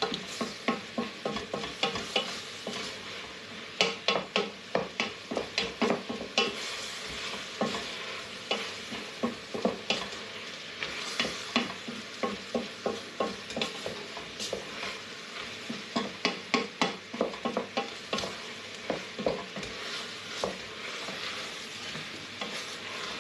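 Wooden spoon stirring carrots and celery frying in a large stainless steel pot, with a steady sizzle and many short knocks and scrapes of the spoon against the pot.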